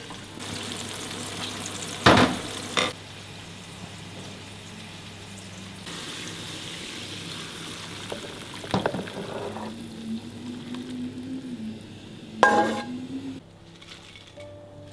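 Spicy chili-garlic sauce sizzling in a frying pan, with a few sharp knocks of a utensil against the pan, then poured out over fried fish in a roasting tray.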